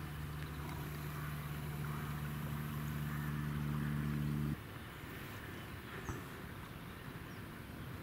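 A low, steady motor hum that cuts off abruptly about four and a half seconds in, leaving fainter outdoor background noise.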